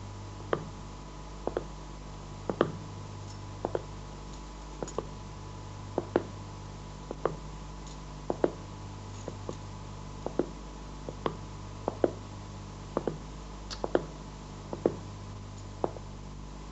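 Slow footsteps on a hard floor, about one step a second, some steps landing as a quick double knock, over a steady low electrical hum.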